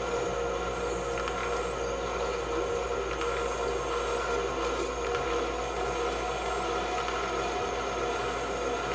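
Improvised electronic drone from oscillators and electronics: a dense bed of many steady held tones, with a high whistling tone that rises, holds and drops back about every two seconds.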